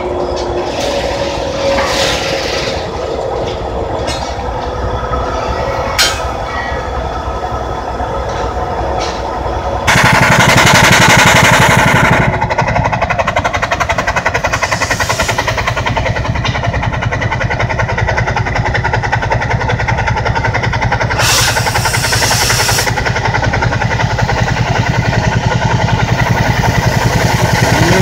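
Sawmill steam engine running, its exhaust beating fast and evenly up the smokestack. The sound jumps louder about ten seconds in, and a short burst of hiss comes later.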